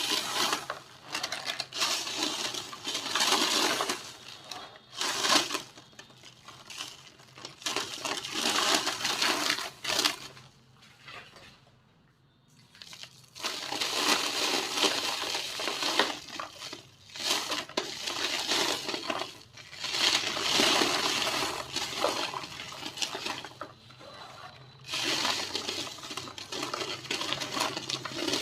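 Small dried shapes of pink-tinted white cement being crumbled, giving crisp, gritty crackling in bursts of a few seconds each, broken by short pauses, with a longer pause about midway.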